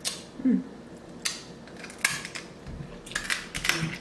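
Close-miked crab shells cracking and snapping as they are broken apart by hand and bitten, a sharp crack about every second with a quick cluster of them near the end. A short hummed sound comes about half a second in.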